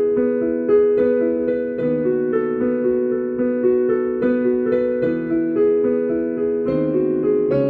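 Piano playing a continuous piece: a moving line of notes over lower held notes, each note starting cleanly and ringing on.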